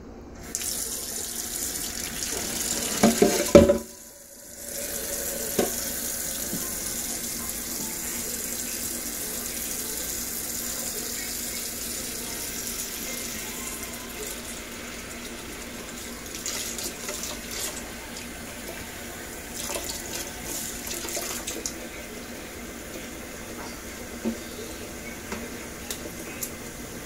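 Kitchen faucet running water into a pot in a stainless steel sink, with a toddler's hands splashing in it. There is a louder burst of sound about three seconds in, then a short break before the running water resumes.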